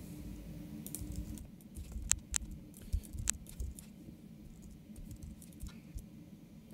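Quiet computer keyboard and mouse clicks: a handful of sharp taps about two to three seconds in, over a low rumble.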